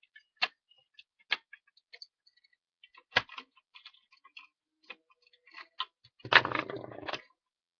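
Small clicks and taps of plastic parts and a screwdriver being handled during the disassembly of a plastic toy water gun, with a louder rattling clatter about six seconds in.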